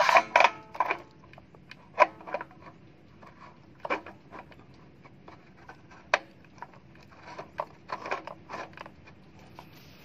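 Scattered clicks and knocks of metal parts being handled as a new electric water heater heating element, held by its brass flange, is fitted into the tank opening; the sharpest knocks come about two, four and six seconds in, with a cluster near the end.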